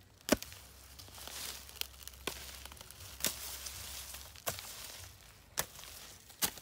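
A hand hoe chopping into soil, a sharp strike roughly once a second, six or seven in all, with dry sugarcane leaves crackling and rustling in between.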